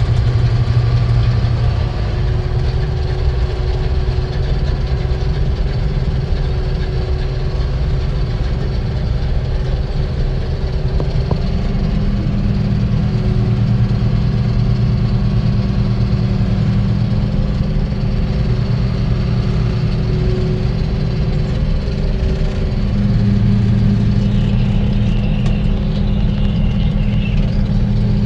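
Heavy farm machinery engine running steadily with a low hum, its tone shifting about eleven seconds in and again near the end.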